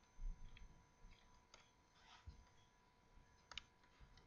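Faint computer mouse clicks over near silence while points are selected to measure an angle on screen. There are a few single clicks, and the loudest is a quick double click about three and a half seconds in.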